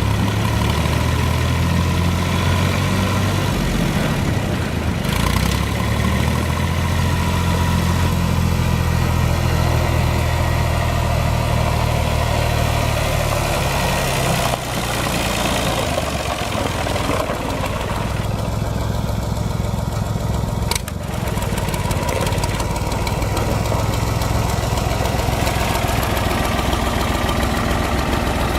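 Allis-Chalmers 5050 tractor's three-cylinder diesel engine running steadily at idle, its note shifting slightly a few times. A short sharp click comes about three-quarters of the way through.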